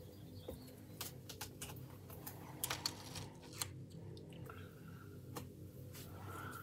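Light scattered clicks and ticks of steel tweezers working on a plastic scale model kit as a masking-tape cover is picked off the cockpit opening, over a faint steady low hum.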